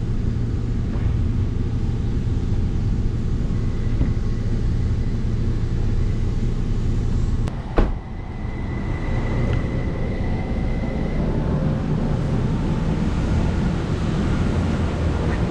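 Truck engine running with a steady low rumble. A sharp click and a brief drop in level come just before eight seconds in.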